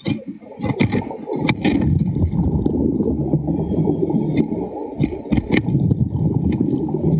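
Muffled underwater rumble with scattered sharp clicks and knocks, as the diver goes after a crab hiding in the sand.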